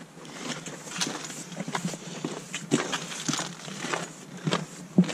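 Footsteps of a hiker walking along a wet, sandy trail, an irregular run of short steps and scuffs about two or three a second.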